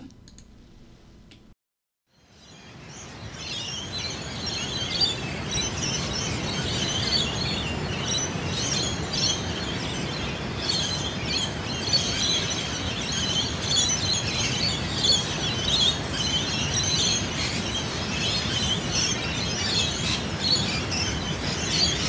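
Recorded lorikeets chirping and calling over a steady wash of sea waves. It fades in about two seconds in.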